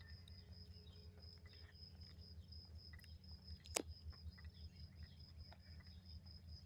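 Faint, steady high-pitched insect chirping over a low hum, with one sharp click a little under four seconds in.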